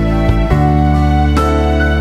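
Background music: slow, gentle instrumental with sustained notes that change every second or so.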